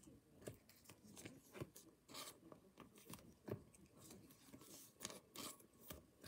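Faint, scattered clicks and rustles of trading cards and hard plastic card holders being handled and set down on a table.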